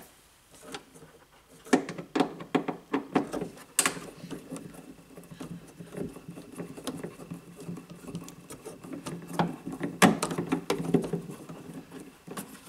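Torx T15 screwdriver backing out a small bolt from a trunk-lid bracket by hand: irregular clicks and scratches of the tool against metal, in flurries about two seconds in and again about ten seconds in.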